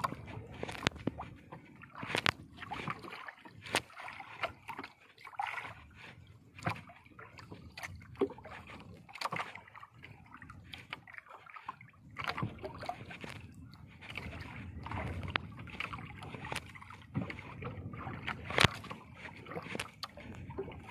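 Water sloshing and slapping against the hull of a small outrigger boat, with irregular sharp knocks and clicks throughout.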